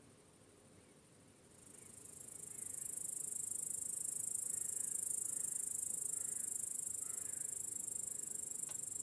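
Crickets chirping in a dense, high-pitched chorus that fades in over the first few seconds, holds steady, and cuts off abruptly near the end.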